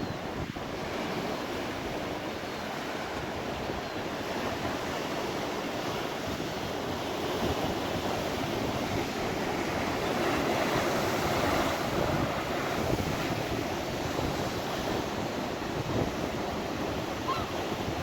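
Loud, rough sea surf breaking and rushing in a continuous wash that swells louder around the middle, with wind buffeting the microphone.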